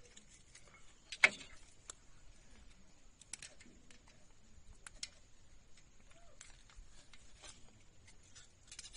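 Light metal clicks and taps of a hand tool against the rocker arms and adjusters of a Maruti Suzuki Alto's open valve train during tappet clearance adjustment. One sharp click about a second in, then a few fainter scattered ticks.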